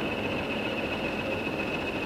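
Diesel locomotive running steadily, with a constant high-pitched whine over an even rumble.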